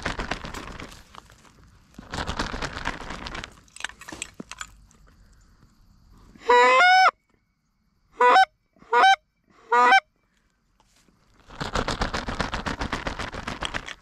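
A goose flag waved in bursts, its fabric flapping and swishing, and in between a goose call sounding loud and close: one longer honk, then three short honks in quick succession.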